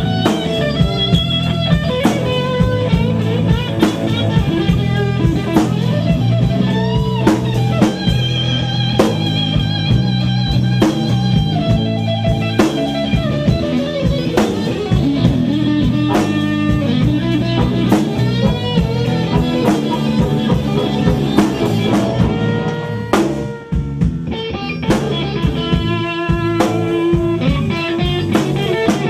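Blues band playing live: electric guitar through a Marshall amp playing lines with string bends over a drum kit. The playing drops out briefly about three-quarters of the way through, then picks up again.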